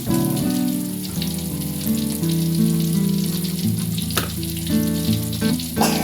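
Tofu frying in hot oil, sizzling steadily under background music, with two sharp clicks a few seconds in and near the end.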